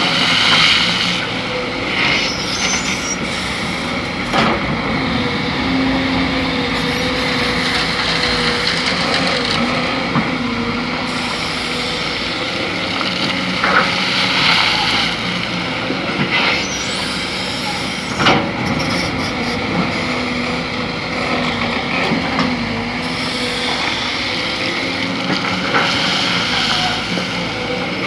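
Excavator's diesel engine running steadily at a sand mine, with several sharp clanks and knocks from the working machine.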